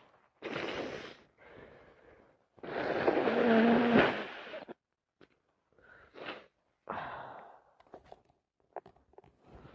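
A person with a cold breathing noisily: a string of short, rough breaths, then a louder, wheezy breath of about two seconds with some voice in it, ending sharply about four seconds in. Quieter breaths and a few faint clicks follow.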